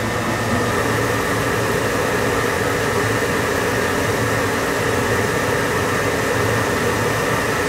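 Steady whirring hiss of submersible machinery, with a faint steady hum running through it.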